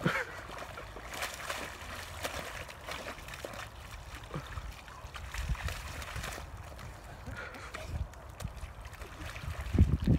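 St Bernard sloshing and splashing in a shallow muddy puddle as it rolls and shifts about, in irregular wet bursts, with a louder burst near the end.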